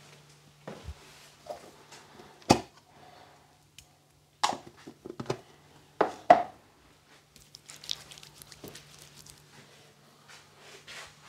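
Barber's tools and items being picked up and set down on a counter: several sharp knocks and clatters, with softer rustling later and a faint steady low hum underneath.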